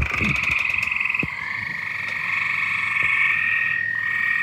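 A chorus of frogs calling in steady, overlapping high trills, with no break. A second, slightly lower trill joins about a second and a half in.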